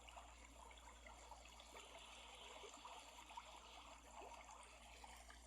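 Near silence, with a faint trickle of running water.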